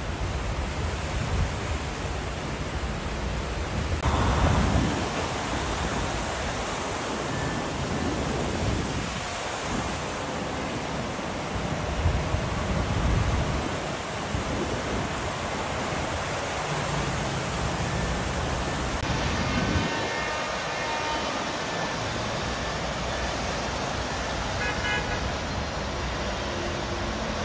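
Traffic driving slowly through deep floodwater on a flooded highway: engines and tyres churning through water over a steady rushing hiss. The sound changes abruptly a few times between stretches.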